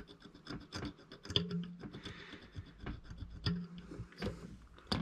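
Metal multimeter probe tip scraping the varnish coating off the pins on a Xiaomi M365 scooter controller board: a faint run of small, irregular scratches and clicks.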